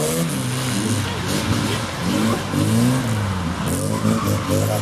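A classic Mini's engine revving up and down repeatedly as the car accelerates, brakes and turns round the cones of an autotest course.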